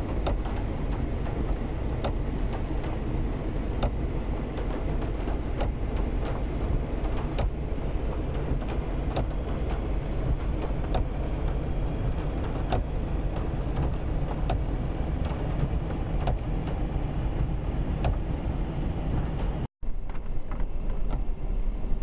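Car cabin noise while driving slowly on a wet gravel and dirt track in heavy rain: a steady low rumble of engine and tyres, with scattered sharp ticks of rain and grit striking the body and windshield. The sound cuts out for an instant near the end.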